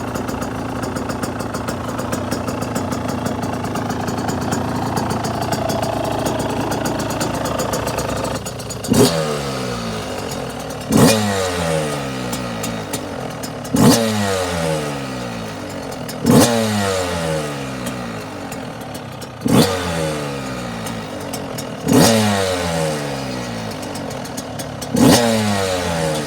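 2022 Yamaha YZ125 two-stroke dirt bike engine running steadily for about nine seconds, then blipped about seven times, each rev rising sharply and falling away over the next couple of seconds.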